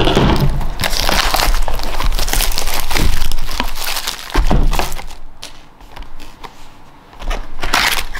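Plastic shrink wrap being torn and crumpled off a cardboard trading-card booster box, with loud crinkling for about four seconds. Quieter handling follows, then a short rustle near the end as the box lid is opened.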